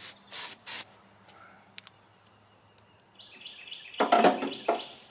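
Short rustling and clattering handling noises in the first second and again about four seconds in, with birds chirping in the background. No engine is heard running or cranking.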